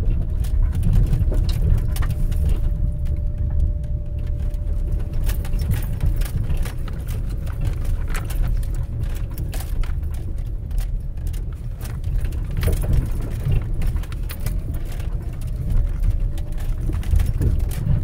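Car driving slowly over a rough, debris-strewn dirt road, heard from inside the cabin: a steady low rumble of tyres and suspension with frequent small clicks and cracks as the tyres roll over the road, and a faint steady whine underneath.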